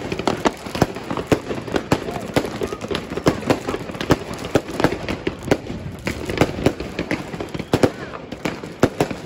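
Fireworks and firecrackers going off: a dense, irregular string of sharp bangs and cracks, several a second.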